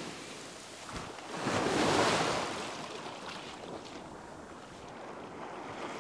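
Small surf waves breaking and washing up a sandy beach in shallow water, one wash swelling to a peak about two seconds in, then easing off.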